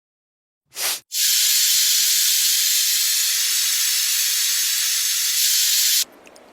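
A short burst just under a second in, then a steady, loud hiss that holds level for about five seconds and cuts off suddenly near the end.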